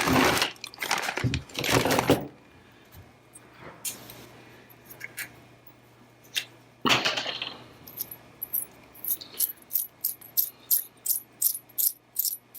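Metal parts clattering as they are handled, then a regular run of light metallic clicks, about three a second, starting about eight seconds in, as the nut on an N connector is tightened.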